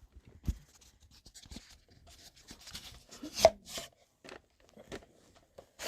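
Hands handling small hard objects: scattered light clicks and rubbing, with a sharper click about three and a half seconds in and another at the very end.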